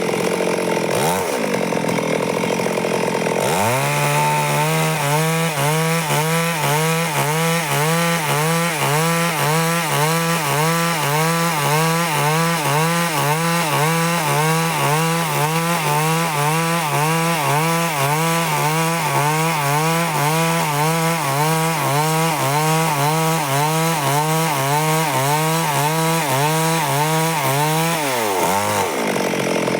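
Stihl chainsaw running at high throttle, sawing lengthwise through a log to cut boards. About four seconds in, the engine note drops and settles into a steady pitch under load with a regular waver. It dips briefly and picks back up near the end.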